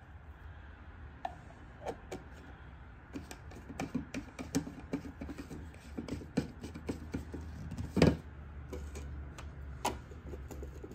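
Plastic screw caps being put back on HP ink bottles: a run of small plastic clicks and taps, with one louder knock about eight seconds in.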